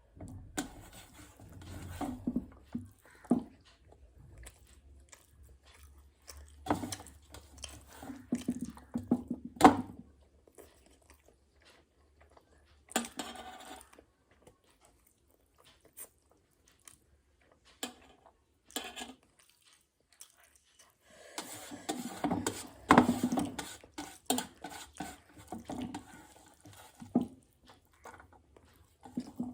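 Eating sounds from a meal of rice and fish curry: food being mixed and scooped on a plate and chewed, in scattered bursts of small clicks and wet noises, with pauses of several seconds around the middle.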